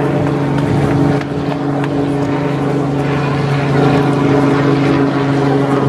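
A steady engine-like hum holding one even pitch throughout, under a rough background noise.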